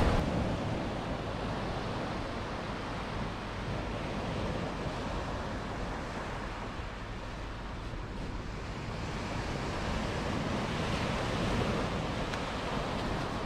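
Ocean surf breaking and washing up a sandy beach, swelling and easing as waves come in, with a low wind rumble on the microphone.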